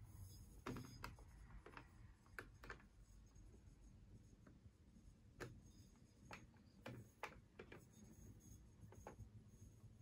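Near silence: room tone with about a dozen faint, irregular small clicks.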